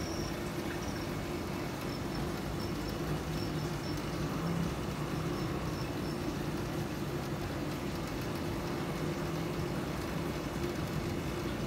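Aquarium filter pump running: a steady low hum under an even hiss.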